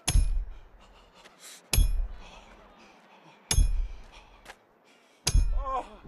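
Hammer driving a large iron nail into a wooden beam: four heavy blows about two seconds apart, each a deep thud with a ringing metallic clang. A voice cries out briefly after the last blow.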